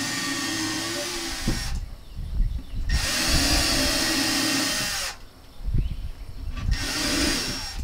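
Electric drill with a small 1/16-inch bit pre-drilling nail holes in the wooden box joints of a beehive hive body, running in three bursts of about two seconds each with short pauses between. The pilot holes keep the wood from splitting when the joints are nailed.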